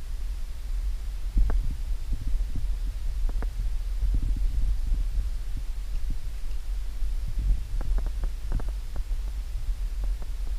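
Wind buffeting the microphone in a steady low rumble, with scattered faint crackles and snaps.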